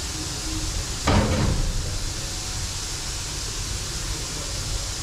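Steady hiss and low rumble of background noise, with a single knock about a second in that fades quickly.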